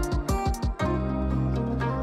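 Background music: a quick run of short repeated notes, then held low bass notes from about a second in.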